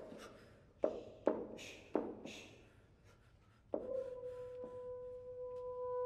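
French horns playing extended techniques: a few sharp pops with a short ring and breathy rushes of air through the instruments. About two-thirds of the way in, one horn starts a long steady note that holds to the end.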